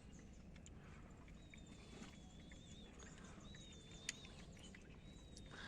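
Near-silent outdoor quiet with a faint bird giving thin, high, wavering calls three times, the first about a second and a half long. A single sharp click comes about four seconds in.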